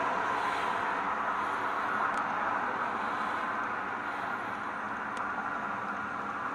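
Steady background rush of noise with a faint low hum underneath, no distinct event.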